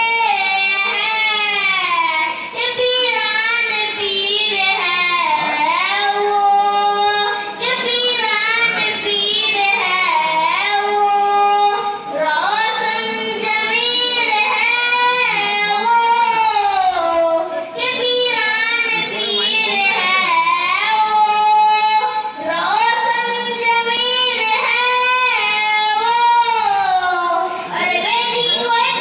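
A boy's voice singing a naat, an Urdu devotional poem in praise of the Prophet, solo into a microphone. It goes in long melodic phrases with held, gliding notes, pausing briefly for breath about every five seconds.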